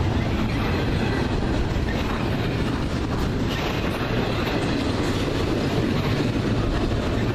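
Cars of an intermodal freight train rolling steadily past, the wheels running on the rails.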